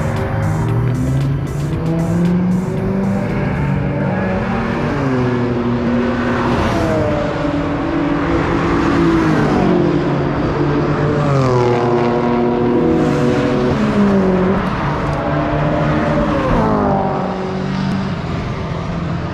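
Track-day cars' engines running hard on the circuit, revving and passing, their pitch climbing and then dropping sharply several times.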